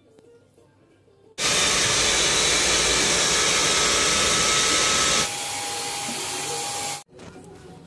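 Handheld hair dryer blowing air with a steady motor whine, starting abruptly about a second and a half in. About five seconds in it drops to a quieter level with a lower whine, then cuts off suddenly.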